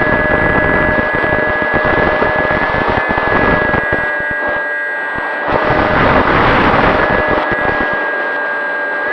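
Electric brushless motor and propeller of an FX-61 Phantom flying wing (Turnigy 3542 1450kv with an 8x4 prop) whining steadily at cruise throttle in flight, heard through the onboard camera with heavy wind buffeting on the microphone; the rush of air swells about halfway through.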